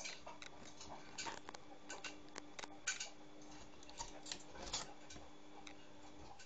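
Scattered light clicks and taps at irregular intervals, over a faint steady hum that cuts off near the end.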